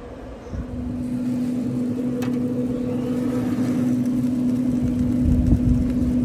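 Traeger pellet grill's fan running with a steady hum that swells about half a second in. There is a light click about two seconds in.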